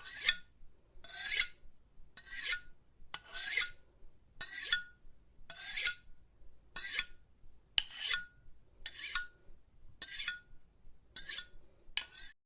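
Knife blade being sharpened in regular strokes, about one a second: each stroke is a high, hissing metal scrape that ends in a brief ring from the blade. The strokes stop abruptly near the end.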